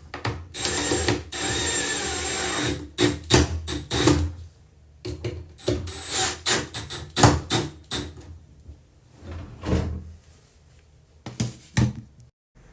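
Handheld power drill running, first in two longer runs with a steady high whine, then in many short bursts mixed with clicks and knocks.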